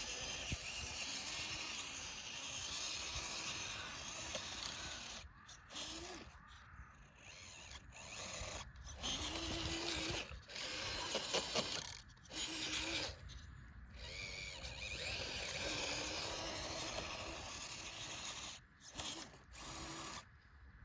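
A motor running in spells, a whine that rises and falls over a rushing hiss, cutting out briefly several times.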